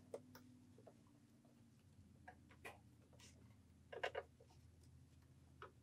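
Near silence with a few faint, scattered clicks and taps of fabric being handled and positioned under a sewing machine's presser foot, the clearest cluster about four seconds in. The machine is not stitching.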